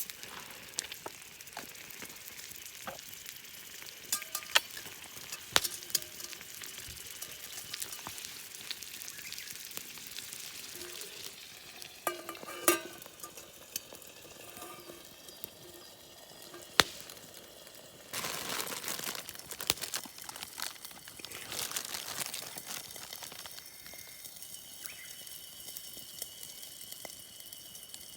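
Food sizzling and crackling over heat, with a steady hiss and scattered sharp clicks, swelling louder for a couple of seconds about two-thirds of the way in.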